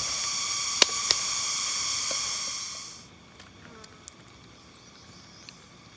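A steady, high-pitched buzzing hiss with two short clicks, fading out about three seconds in. Then a metal ladle stirs chicken curry in an iron wok, with a few faint clicks against the pan.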